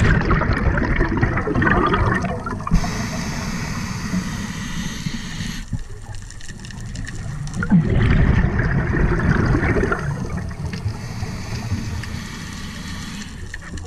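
A scuba diver breathing through a regulator, heard underwater: two long rushes of exhaled bubbles, one at the start and one about eight seconds in. Between them comes a quieter, higher hiss of an inhalation.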